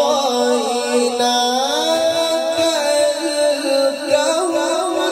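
A man's voice reciting the Quran in melodic tilawah style, amplified through a microphone and PA. He holds long notes with ornamented turns, and his pitch climbs about two seconds in.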